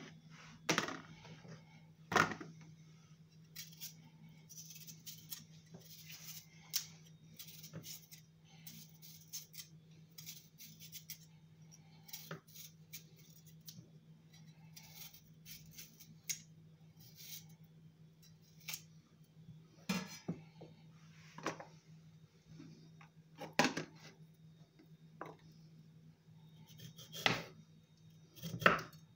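Kitchen knife clicking and knocking on a wooden cutting board as kiwis are peeled and cut, with scattered small clicks and a few louder knocks, the loudest about two seconds in and several in the last ten seconds. A steady low hum runs underneath.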